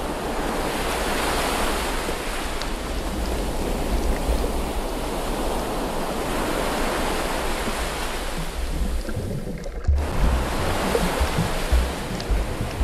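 Steady rushing water noise picked up by a camera held underwater while snorkeling. Just before ten seconds in the sound drops out briefly, and after that low irregular thumps join the rush.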